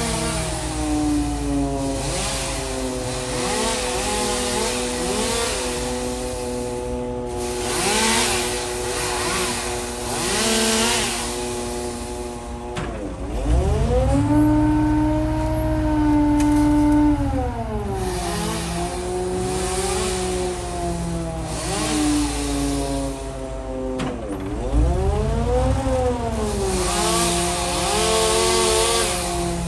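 Engine-driven machinery running continuously, with small pitch flicks early on, then revving up about halfway through, holding high for a few seconds, and dropping back, with a second shorter rev-up near the end.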